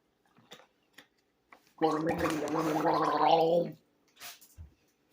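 A person gargling water in the throat: one loud, bubbling gargle of about two seconds, starting about two seconds in.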